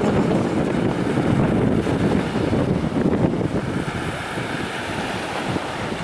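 Wind buffeting the microphone over the steady wash of surf on a sandy beach, easing slightly about two-thirds of the way through.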